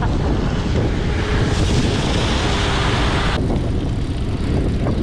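Wind rushing over the microphone of a camera on a moving bicycle, a steady low rumble. A brighter hiss swells in the middle and cuts off suddenly about three and a half seconds in.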